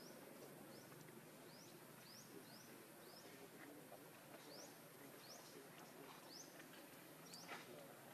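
Faint outdoor ambience with a bird repeating short, high chirps that sweep upward, about once a second.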